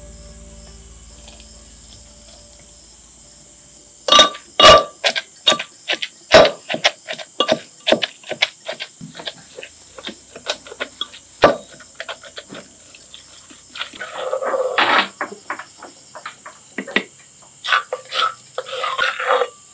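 Pestle pounding chopped vegetables in a mortar: after a quiet start, a run of irregular knocks begins about four seconds in, broken twice by short rough bouts of crushing and grinding near the end.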